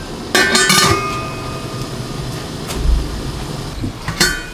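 Stainless-steel stockpot lid clanking against the pot as it is handled, ringing on briefly after the first clank about half a second in. A second clatter comes near the end as the lid is lifted, over a low steady hiss.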